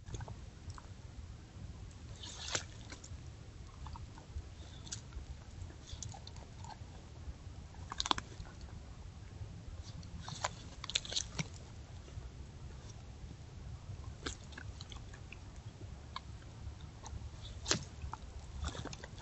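A coyote crunching and chewing on deer bones and gut pile: scattered sharp crunches and clicks, the loudest about 2.5, 8, 11 and 18 seconds in, over a steady low hum.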